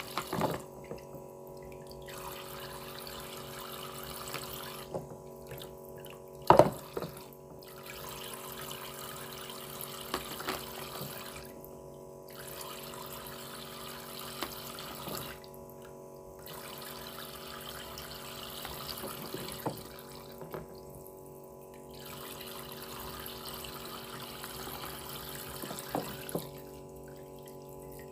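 Water running from a battery-powered toy sink faucet into its plastic basin over the steady hum of the sink's small pump. Plastic toy fruit clacks now and then, loudest about six and a half seconds in.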